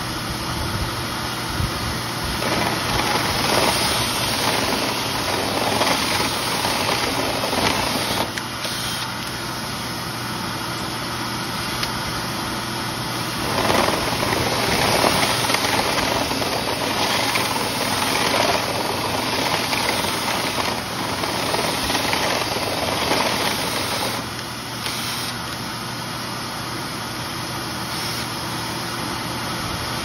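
Dryer vent cleaning equipment running: a cordless drill spins a rotary brush rod through the vent duct over a steady motor drone and rushing air. The level rises and falls every few seconds.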